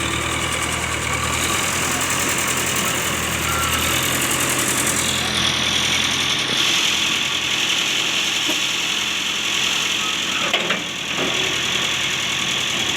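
Concrete mixer machine's engine running steadily, the sound changing somewhat about four to five seconds in.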